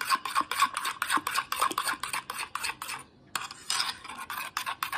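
Metal spoon stirring thick mayonnaise-based sauce in a bowl: rapid, rhythmic scraping against the bowl at about five strokes a second, with a brief pause about three seconds in.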